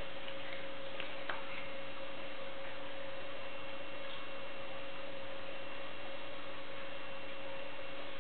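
Steady electrical hum with two constant tones over a faint hiss: room tone, with one faint click about a second in.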